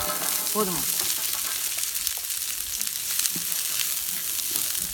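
Chopped red onions sizzling and crackling in hot oil in a wide iron pan, with a wooden spatula stirring them near the end.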